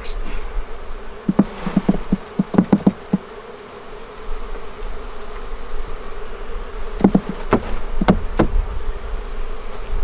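Honeybees buzzing steadily around an open hive, with a quick run of sharp knocks about a second in and a few more near the end as a wooden hive frame is handled against the box.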